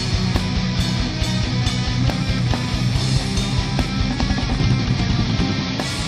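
Heavy metal band recording: distorted electric guitars, bass and fast, steady drumming with a rapid kick drum, with no singing.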